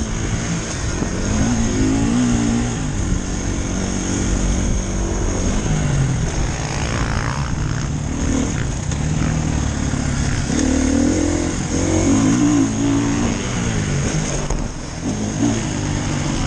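Dirt bike engine being ridden hard around a motocross track, its pitch rising and falling as the throttle is opened and closed through the corners and straights.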